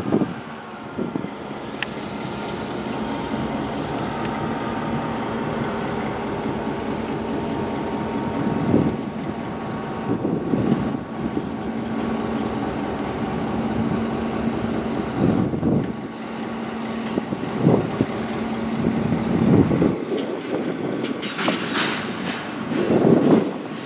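EMD GP9 diesel locomotive with a 16-cylinder 567 engine running off to one side, a steady drone. Several separate clunks break in, the loudest near the end.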